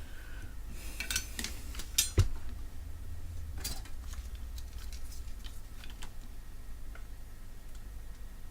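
Scattered light clinks and clicks of small metal tools and parts being handled and set down on a workbench, with one louder knock about two seconds in.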